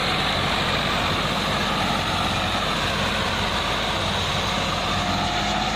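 Tractor engine running steadily, powering a rear-mounted boom sprayer that is spraying, with a steady hiss over the engine.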